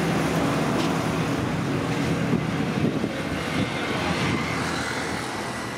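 Road traffic noise: a passing motor vehicle's engine and tyre rush, fading gradually.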